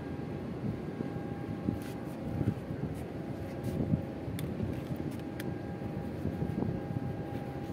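Large container ship passing close by: a low rumble from its machinery, with a steady hum of a few held tones above it and a few faint clicks.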